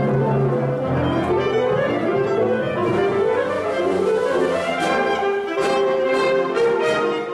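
Solo alto saxophone and saxophone orchestra playing a classical concert piece, the full ensemble sounding together with many quick runs rising and falling in pitch.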